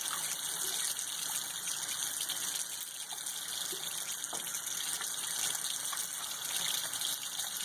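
Tap water running steadily while hands rub a bar of soap into a lather.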